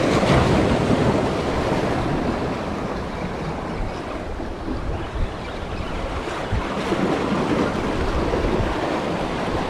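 Waves splashing and washing against the rocks of a jetty, with wind buffeting the microphone.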